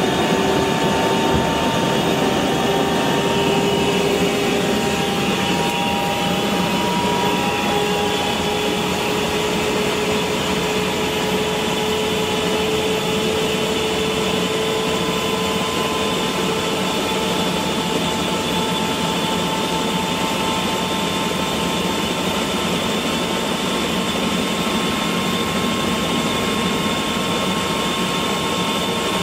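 Eurocopter EC120 Colibri's turboshaft engine and rotor running on the ground, heard from inside the cabin: a steady rushing whine whose tones rise slowly in pitch as the engine and rotor spool up before takeoff.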